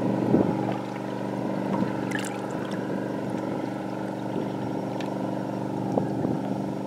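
Steady hum of a running boat motor, with a few light water splashes as a released smallmouth bass slips back into the lake.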